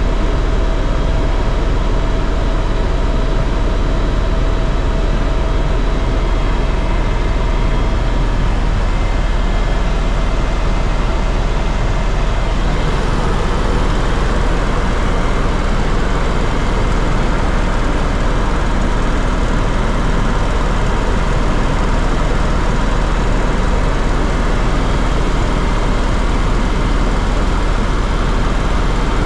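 Steady loud drone of a sightseeing aircraft's engines and rushing air heard inside the cabin; about halfway through, a few faint steady whines drop away and the noise turns brighter.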